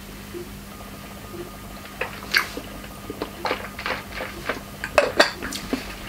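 A sip from a tasting glass, then light clinks and knocks of small glass sample bottles and glasses being handled in a tray, a few at first and more often toward the end.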